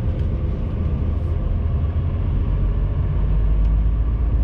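Diesel engine of a rigid Class 2 HGV running as the lorry drives slowly, a steady low-pitched drone that gets slightly louder near the end.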